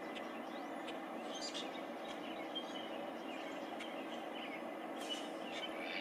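Outdoor ambience: a steady low hum, with small birds chirping faintly a few times.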